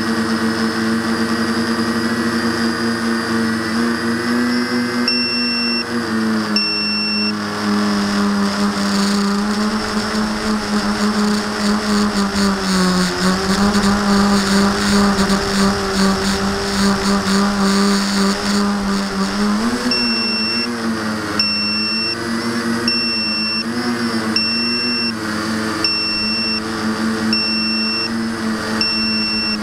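Electric motors and propellers of a V-tail quadcopter whining steadily, the pitch dipping and wavering as the throttle changes. A short high electronic beep sounds twice about five seconds in, then repeats about every second and a half through the last ten seconds.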